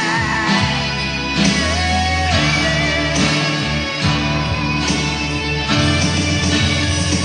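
Guitar music: a twelve-string acoustic guitar played in full chords over a steady low bass, with a sliding melodic line about two seconds in.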